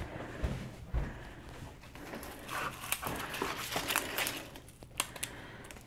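Hands rummaging for an onion: irregular crinkling and rustling with scattered light clicks and a few soft knocks in the first second.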